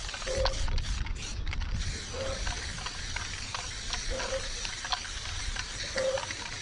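Aerosol spray-paint can hissing in short strokes, with scattered clicks and rattles of the can. A short chirp repeats about every two seconds.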